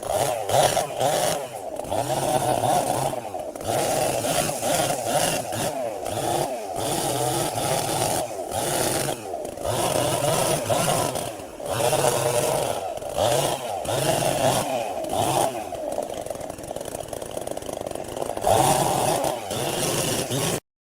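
Chainsaw running at high revs, its level rising and falling repeatedly as it works through wood. The sound cuts off suddenly near the end.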